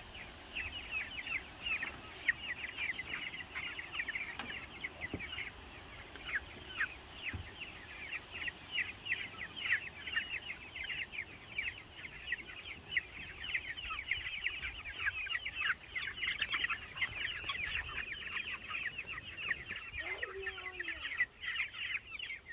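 A flock of young broiler (meat) chickens peeping without a break, many short, high, falling chirps overlapping.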